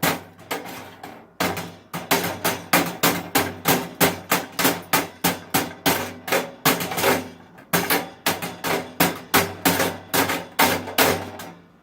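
Hammer blows on a metal computer part, struck rapidly and evenly at about three a second, with a brief pause about a second in. The hammering is knocking the part loose from the case.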